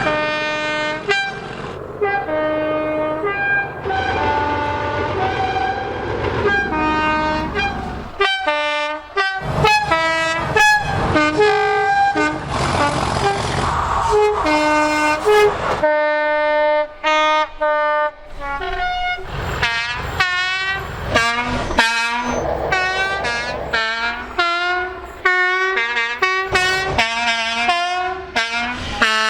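A string of British train horns sounding, many blasts in quick succession, alternating high and low notes in two-tone fashion, some held longer and some bending in pitch. A train's running rumble sits under the horns for the first eight seconds or so.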